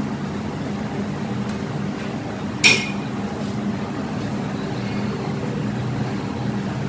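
Steady mechanical hum, with a single sharp clink against a ceramic plate, ringing briefly, about two and a half seconds in, while hands work spice paste onto pineapple pieces on it.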